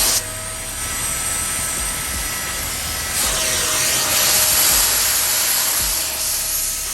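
Hart 3-in-1 wet/dry vacuum and carpet extractor running: a steady motor whine under rushing suction, with the suction getting louder for a couple of seconds midway as the nozzle is worked over the floor mat.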